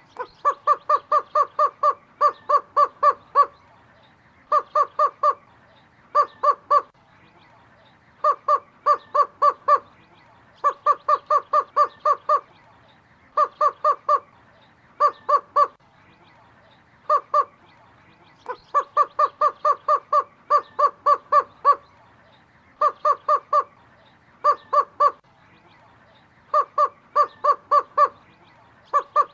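Greater roadrunner calling: runs of short, hollow, evenly spaced notes, about three a second, in groups of two to nine with brief pauses between, all at a steady pitch.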